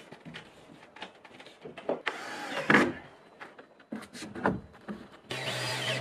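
Knocks and clatter of hammer work on timber, then about five seconds in a cordless drill-driver starts and runs steadily, driving a screw into a roof timber.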